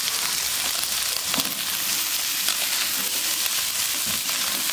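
Cut long beans sizzling steadily in hot oil in a wok with scrambled egg, with a few short knocks of the spatula stirring them.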